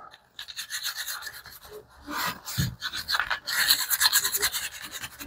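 Small oiled cleaning brush scrubbing the textured grip of a Taurus G3C polymer pistol frame: a run of quick scratchy strokes, with a short pause about two seconds in. The brush carries a light coat of REM oil, used as a solvent to lift hand grime out of the grip texture.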